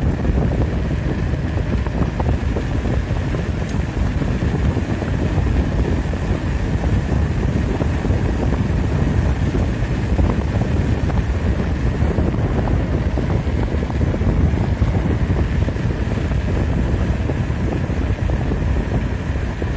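Wind rushing over the microphone of a camera on a moving bicycle: a loud, steady rumble.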